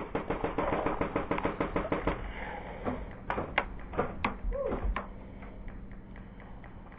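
Airsoft gunfire: a rapid full-auto burst of sharp clicking shots for about two seconds, then several single sharp cracks spaced apart.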